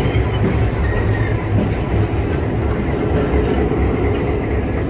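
EMD FP7 diesel locomotive's 16-cylinder two-stroke prime mover running steadily, heard up close beside its engine-room grilles, with most of the sound low and deep.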